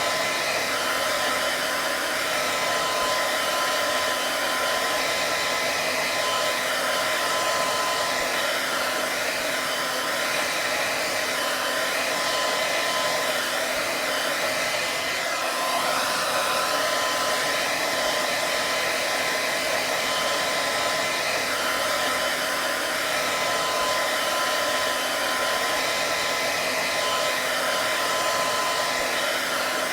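Hair dryer running steadily, an even airy rush with a thin constant whine in it and no change in speed.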